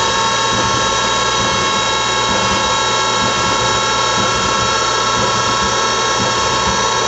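Tsugami BS32C Mark II CNC Swiss lathe running its program with a spindle turning at steady speed: a steady mechanical whine made of several held tones, the strongest in the midrange, over a low hum.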